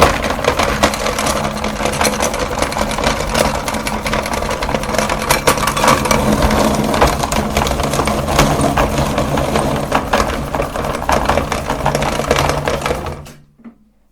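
Meat grinder motor running with a steady hum while jumbo chalk is crushed in it, with dense crunching and crackling throughout; the motor cuts off about a second before the end.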